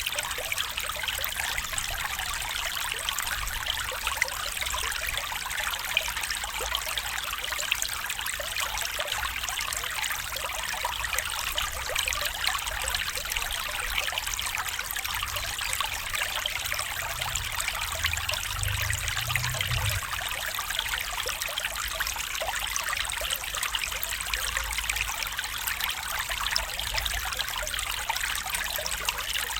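Small stream running and trickling steadily.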